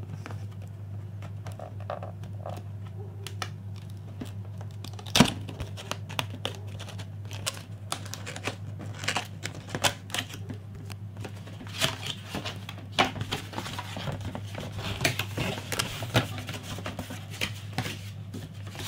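Cardboard box and packaging of a contact grill being handled while it is unpacked: scattered clicks, knocks and crinkles, with one sharp knock about five seconds in. A steady low hum runs underneath.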